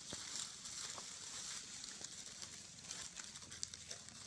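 Dry leaf litter crackling and rustling under walking feet, irregular faint crunches over a steady high hiss.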